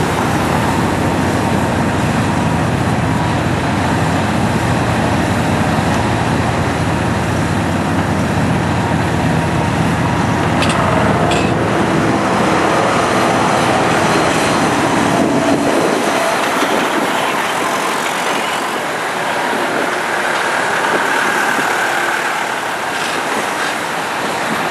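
Kobelco SK350D hydraulic excavator's diesel engine running steadily, with a couple of sharp knocks about eleven seconds in. The deep engine hum weakens about two-thirds of the way through.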